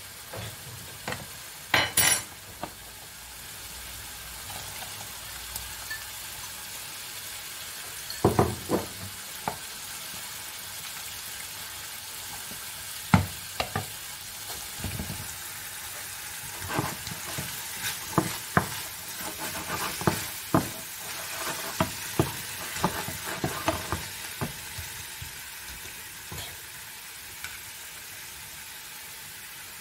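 Wooden spoon stirring in a steel pot of boiling peas being thickened with rice-flour slurry, giving irregular knocks and clicks against the pot, over a steady sizzle of mushrooms frying in a pan.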